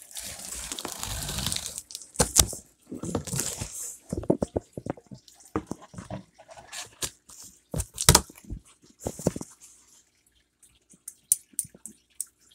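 A cardboard shipping box being opened with a folding pocket knife: a long scraping rustle at first, then the blade slicing through packing tape and cardboard with irregular scrapes, knocks and sharp clicks, the loudest about two and eight seconds in. A few small clicks near the end.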